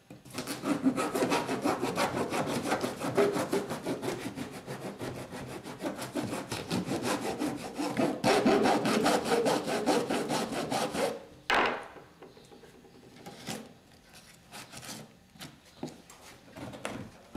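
A metal file scraping in rapid back-and-forth strokes over a dried papier-mâché shell, smoothing down its seams. The steady filing stops about two-thirds of the way through, followed by one short stroke and then only a few faint scrapes.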